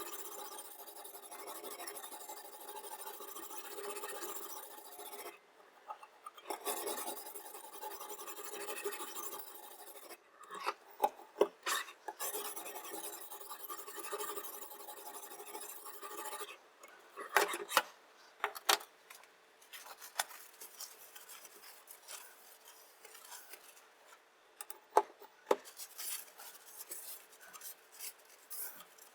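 Diamond sharpening stone rasping back and forth along a chef knife's edge in a guided sharpening system, in runs of several seconds with short pauses, broken now and then by a few sharp clicks and taps.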